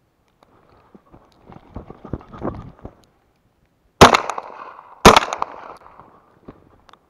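Two shotgun shots about a second apart, each a sharp loud blast followed by a short ring-out.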